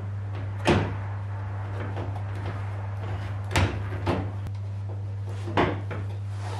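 Sharp plastic clicks as a MINI R53 headlight unit is pressed and seated into the front wing: four short clicks, the loudest about a second in, then three more in the second half, over a steady low hum.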